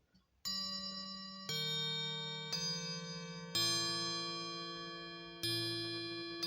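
Revere clock chime rods mounted in a Revere mantel clock base, struck one note at a time, about once a second. Five strikes sound, each ringing on and overlapping the next, with a longer pause before the fifth.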